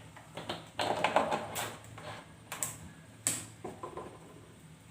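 Kitchen clatter at the stove: an irregular string of sharp clicks and light knocks, with a quick flurry about a second in and a few louder single taps after.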